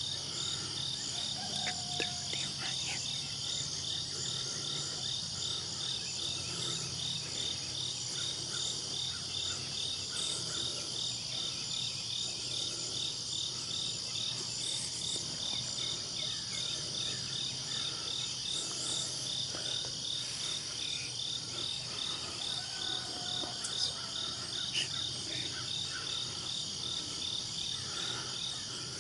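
Steady chorus of night insects: a continuous high buzz with a regular pulsing chirp just beneath it. There are two faint clicks near the end.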